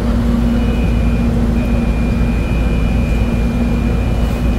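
Metro Manila MRT Line 3 train running: a steady low rumble with a constant hum. A thin high tone sets in about half a second in, breaks off briefly, then carries on steadily.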